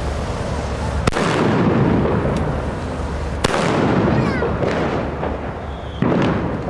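Firecrackers exploding on the ground: three loud sharp bangs about a second, three and a half seconds and six seconds in, with a fainter pop between the first two. Each bang trails off in a long echoing rumble.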